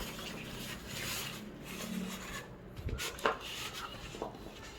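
Hands rummaging through a keyboard's box and packing: rubbing and scraping with a few light clicks and knocks, the sharpest about three seconds in.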